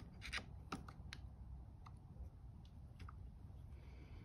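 Faint, irregular metallic clicks of a small flat-blade screwdriver tip prying thin metal lock tabs up against bolt heads.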